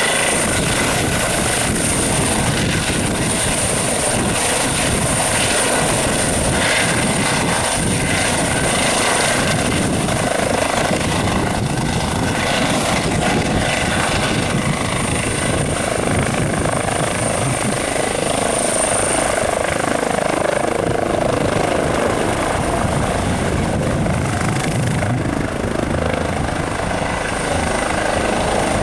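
Eurocopter EC135 twin-turbine helicopter running steadily close by, its rotor noise joined by a steady high turbine whine.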